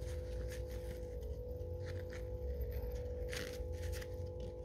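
Faint clicks and light scrapes of a small cardboard jewellery box and a silver chain being handled, over a steady low hum.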